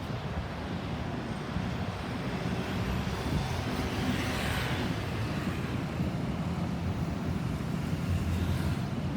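Road traffic noise: steady engine and tyre rumble, with one vehicle passing, its noise swelling and fading about four to five seconds in. No siren is heard.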